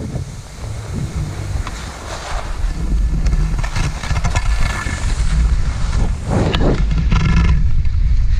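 Wind buffeting the microphone and snow scraping under a rider sliding down a ski slope, a loud low rumble that grows louder about three seconds in.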